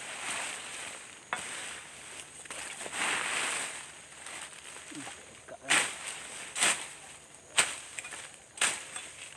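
A long-handled hand tool chopping into undergrowth and soil. Brush rustles first, then four sharp strokes about a second apart in the second half.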